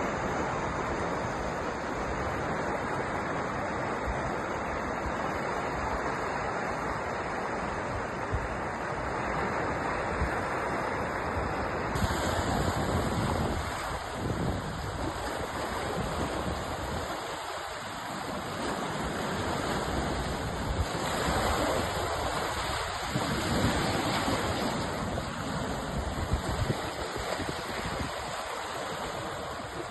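Sea surf washing onto a shore: a continuous rush of waves that swells and eases, with an abrupt change in its hiss about twelve seconds in.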